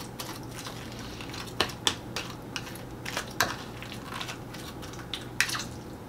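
A metal fork stirring and mashing tuna salad in a small bowl: soft squishing broken by several sharp clicks of the fork against the bowl.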